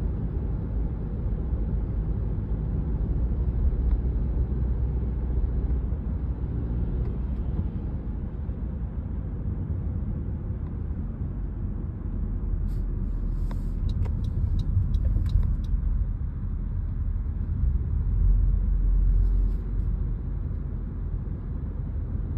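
Car engine and road noise heard from inside the moving car, a steady low rumble. A short run of light clicks comes near the middle. The engine tick heard earlier on deceleration is almost inaudible, which the driver credits to a tank of 93-octane fuel.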